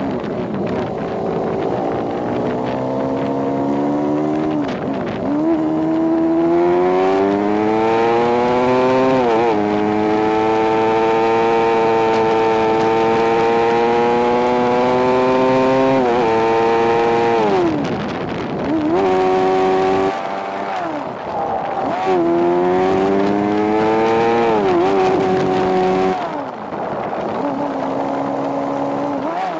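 Motorcycle engine heard from the rider's seat, its pitch climbing steadily under acceleration and dropping back several times as the bike changes gear or slows.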